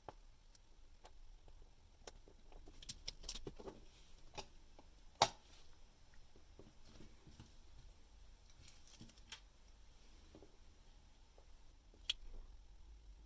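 Faint, scattered small clicks and taps of watchmaker's tools handling parts on a watch movement as the pallet fork is fitted, with a sharper click about five seconds in and another near the end.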